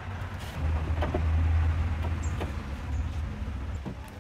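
A low rumble swells about half a second in, holds for about three seconds and fades out, with a few light knocks as wooden bed-frame rails are handled and set in place.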